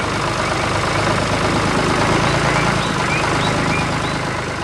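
Tractor engine running steadily as it drives along, a low drone that swells slightly and then eases off, with a few faint high chirps over it.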